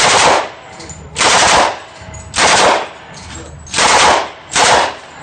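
Thompson submachine gun firing five short bursts of full-auto fire, each about half a second long, until the magazine runs empty.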